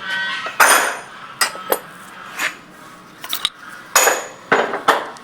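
Metal hand tools clinking and knocking on metal: about eight separate sharp clinks spread out, with the engine stopped, during valve-clearance work on a Ford 5000 tractor engine.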